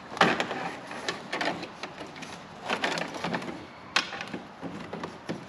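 Aluminum-coated radiator grille screen being pushed and worked by hand up into the plastic ducting behind a C8 Corvette's front bumper: irregular clicks, taps and scraping of the metal mesh against plastic, with a sharper click about four seconds in.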